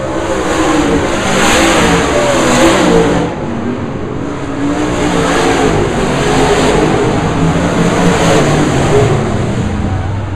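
Dirt-track race car engines revving at racing speed. The sound swells loud and falls away several times as the cars pass.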